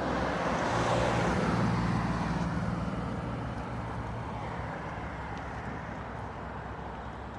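A road vehicle going by: broad road noise with a low engine hum, strongest in the first couple of seconds and then slowly fading.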